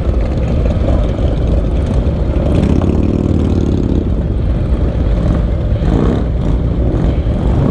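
Harley-Davidson Low Rider's V-twin engine running at low speed in slow traffic, among other motorcycle engines. About two and a half seconds in, an engine revs up and back down for about a second and a half.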